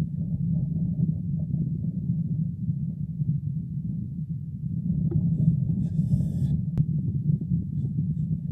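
Low, continuous scraping and rubbing of an animal's fur against a trail camera and its microphone as the animal presses on the camera. A faint hiss comes about six seconds in, followed by a single sharp click.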